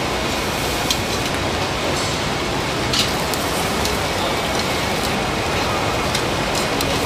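Scallops in their shells and split prawns sizzling on a grill: a steady hiss, with a few sharp clicks about one and three seconds in.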